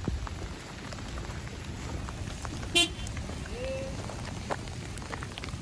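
Steady rain with scattered drops ticking, and a short car horn toot a little under three seconds in.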